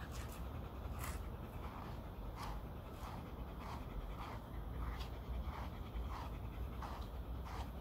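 Shetland sheepdog panting steadily, a soft breath a little more often than once a second, over a low rumble.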